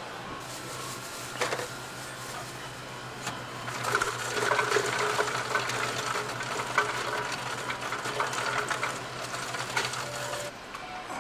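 Self-serve soda fountain in use: a steady low mechanical hum. From about four seconds in there is clattering and plastic rustling as a plastic bag is held under the dispenser.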